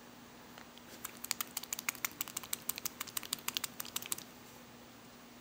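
A capped conductive ink pen being shaken to remix ink that is beading up, its contents rattling in quick clicks, about ten a second, for about three seconds starting about a second in.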